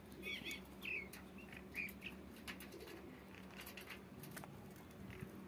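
A pet rose-ringed parakeet gives a few short chirps in the first two seconds, then light clicks and taps follow as it clambers down off a wire cage.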